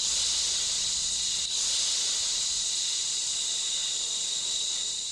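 A woman's voice holding a long, steady hissing 'sss' as a hearing-test sound for a sleeping baby, starting abruptly and tapering off near the end.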